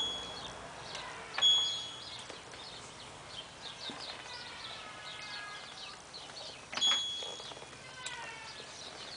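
LG F1222TD washing machine control panel beeping as its buttons are pressed: short, high-pitched single-tone beeps, one right at the start, another about a second and a half in and a third near seven seconds. Between the beeps there are faint, repeated falling chirps.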